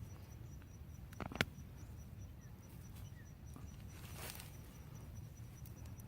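Faint rustling and scraping of potatoes being dug out of garden soil, with one sharp click about a second and a half in and a short rustle near the middle.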